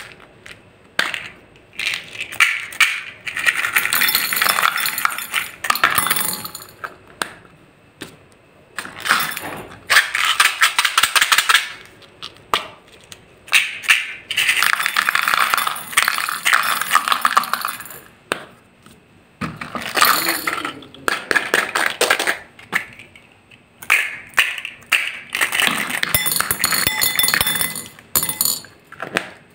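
Small beads rattling in small clear plastic cups and spilling into a glass bowl, with the plastic cups clicking and tapping against the glass. The rattling comes in bursts of a second or two with short pauses between them.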